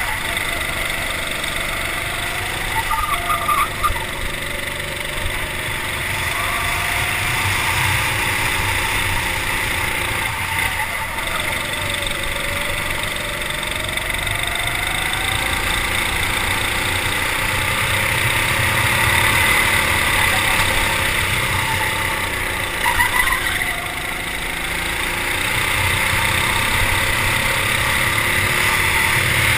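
Racing kart engine running flat out on a lap. Its pitch drops and climbs back three times as the kart slows for corners and accelerates out.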